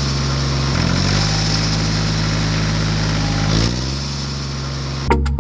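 An engine running steadily at a low pitch, its note rising briefly twice as it revs up, about a second in and again near four seconds. Just before the end the running gives way to a few sharp, sudden sounds.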